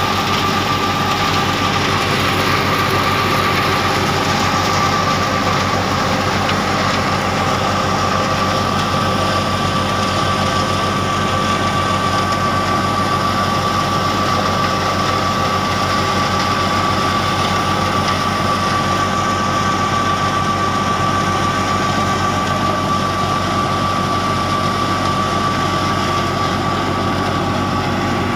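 Belt-driven wheat thresher running steadily while threshing mustard, powered off the pulley of a New Holland Fiat 480 tractor whose diesel engine hums beneath it. A steady high whine sits over the machinery's even rushing noise.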